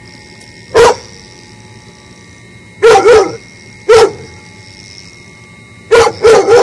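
Dog barking at an opossum it is harassing: loud, sharp barks, one at a time and in quick runs of two or three, with pauses of about a second between groups.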